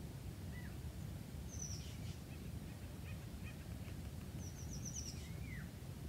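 Small birds calling: a few high, thin down-slurred notes and a quick run of high chips near the end, over a steady low outdoor rumble.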